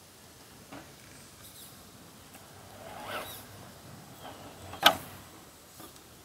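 RC rock crawler working over rock: a small click, a short scrabbling swell about three seconds in, then a sharp knock about five seconds in, with a few fainter clicks around it.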